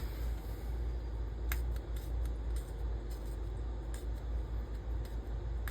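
Light scraping and a few sharp ticks from a steel straight razor being tested and handled after honing, over a steady low hum.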